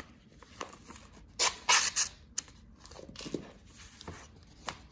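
Paper and plastic packaging being handled and opened by hand: rustling with short crinkling bursts, the loudest cluster about a second and a half in, and small clicks and taps between.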